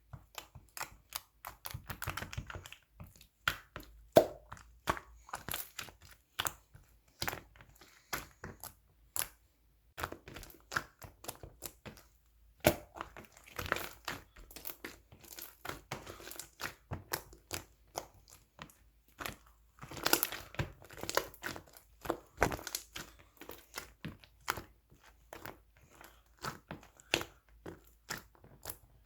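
Clear slime being squished and pulled by hand, giving rapid, irregular sharp clicks and crackling pops.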